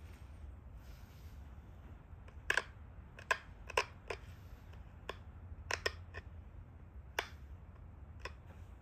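Pressure flaking on a stone Dalton point: about ten sharp, irregularly spaced clicks as small flakes snap off the edge, starting about two and a half seconds in, over a low steady hum.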